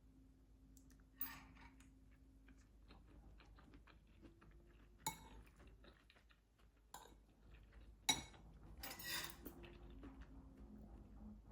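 Dishes and utensils being handled: scattered light clicks and clinks, with a few sharper knocks, the loudest about eight seconds in, followed by a brief rattle. A faint steady hum runs underneath.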